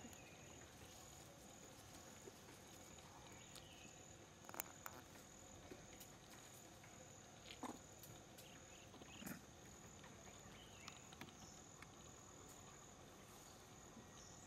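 Near silence under a faint, steady high-pitched insect drone, with a few brief faint sounds in the middle.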